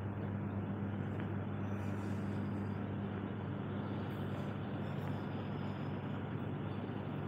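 Motorcycle engine running steadily, a constant low drone with no change in pitch.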